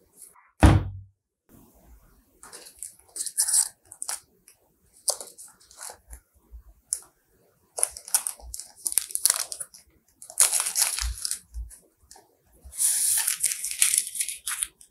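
A heavy thump about half a second in, then repeated bursts of paper crinkling and tearing as the paper wrapper is worked off a drinking straw.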